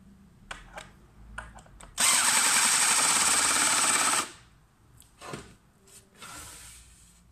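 Cordless drill-driver driving a wood screw down into a chipboard block, running for about two seconds and then stopping. A few small knocks from handling the block and screw come before and after it.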